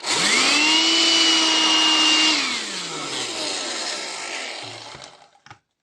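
Small car vacuum cleaner motor, converted to run from a rechargeable battery, switched on: its whine climbs quickly to a steady pitch over a rush of air. After about two seconds it is switched off and spins down, the whine falling and fading over the next two to three seconds.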